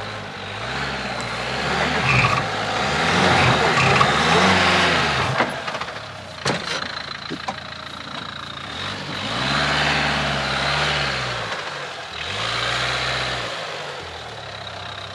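Dacia Duster 4x4's engine revving up and easing off in several long swells as the SUV crawls over bumpy ground with a wheel lifted. A few sharp knocks come about halfway through.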